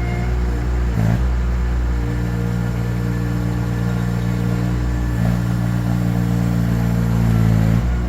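Baumalight TRL620D mini skid steer's engine running steadily under work, its note shifting about a second in, again near five seconds and near the end.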